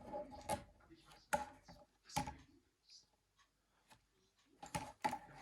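A few sharp clicks and taps from handling the Nokia 9300i's small screws and plastic housing parts during disassembly: three separate taps in the first couple of seconds, a lull, then a cluster of clicks near the end.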